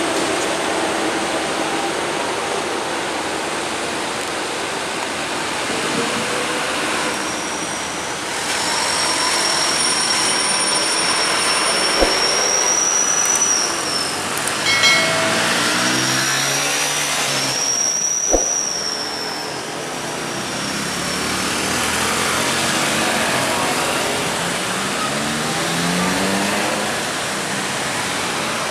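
Road traffic on a steep hill: car and truck engines running as vehicles pass one by one, their pitch rising and falling in the second half. A long high squeal sounds twice around the middle, with a couple of sharp clicks and a short blip.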